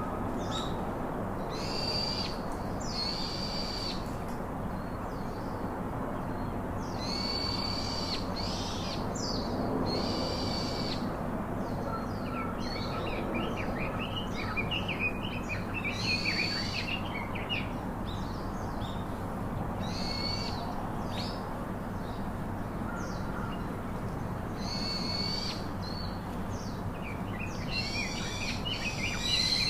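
Wild birds calling: short, harsh calls, each under a second, repeating every few seconds, with quick twittering from smaller birds in the middle and again near the end, over a steady background hiss.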